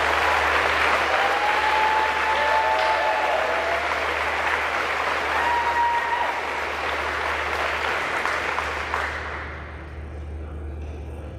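Audience applauding in a school gymnasium, a steady clapping that dies away about nine or ten seconds in.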